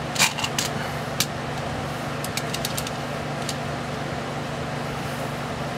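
Light clicks and knocks of plastic parts being handled and set down on a workbench, over a steady low hum.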